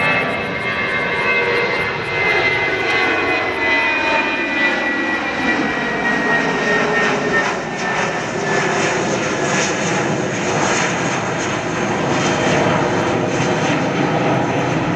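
Twin turbofan engines of an Aegean Airlines Airbus jet at takeoff power during the climb-out: a loud, steady jet roar with whining tones that slowly fall in pitch as the aircraft passes and draws away.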